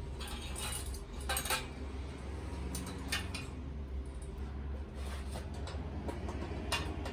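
Small metal parts and hand tools clinking and rattling in several short bursts, over a steady low hum, while a motorcycle turn signal is being fitted.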